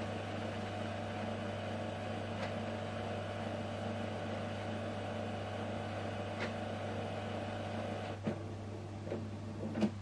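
HP DeskJet 4120e's automatic document feeder running, drawing pages through the scanner: a steady motor hum with a sharp click every few seconds. The motor stops about eight seconds in, followed by a few clicks as the feed ends.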